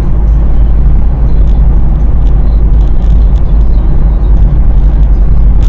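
Steady low rumble of a moving car's engine and tyres on the road, heard from inside the cabin through a dashcam's built-in microphone, with a few faint ticks.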